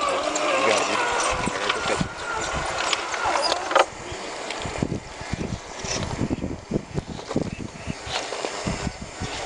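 Radio-controlled rock crawler's electric motor and gearbox whining with a wavering pitch as it crawls over rock, with small ticks and a sharp click about four seconds in. After that the whine fades and irregular low thuds and rumbles take over.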